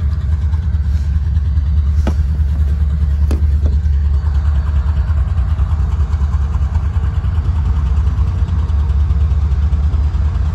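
Steady low rumble of a freight train's diesel-electric locomotives running, with two sharp clicks about two seconds and three and a half seconds in.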